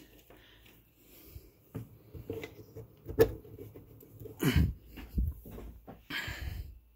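Hands handling a bench power supply: scattered light knocks and thumps, and one sharp click about three seconds in, with breathing close to the microphone.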